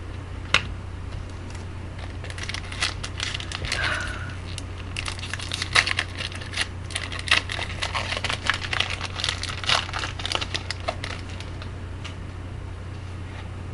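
Crinkling and crackling of a foil trading-card pack wrapper being handled, with many quick irregular crackles through the middle of the stretch, over a steady low electrical hum.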